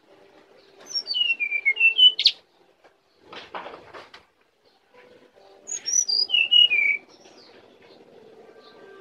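Brown-chested jungle flycatcher singing two short phrases of clear whistled notes that step and slide downward, the first ending in a quick upward note. A brief rustling noise comes between the phrases.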